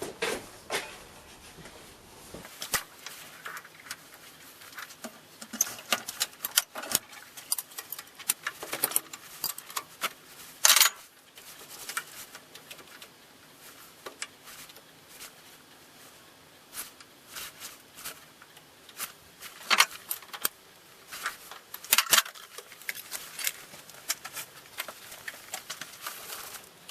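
Irregular metallic clicks, taps and knocks of steel tooling being handled and fitted, a 1-2-3 block and tool holder set against each other on a lathe, with a few louder clanks.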